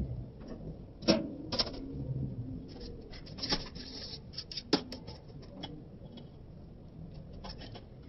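Metal spoon clinking and scraping against a stainless steel bowl while stirring beaten eggs with chopped onions, in irregular clicks, the sharpest about a second in, around three and a half seconds and near five seconds.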